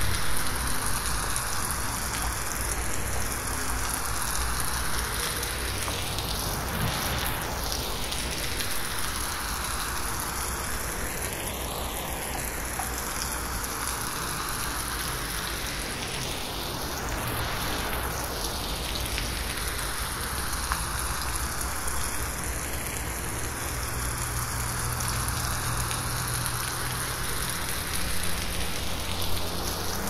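Gentle rain falling on forest leaves, a steady hiss of many small drops. It is processed as 8D audio, so the rain swirls with a slow phasing sweep that comes round about every ten seconds.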